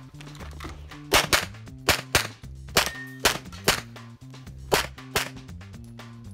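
Canik TP9SFx 9mm pistol fired rapidly, about ten sharp shots, mostly in quick pairs, starting about a second in. Background music plays underneath.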